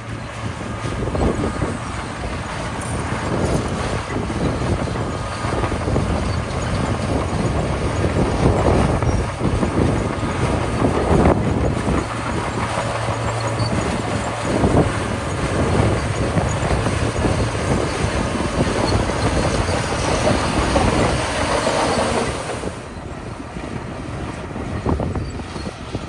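Small crawler bulldozer's diesel engine running under load as it pushes gravel, with its steel tracks clanking and the gravel scraping and crunching. The noise eases briefly near the end.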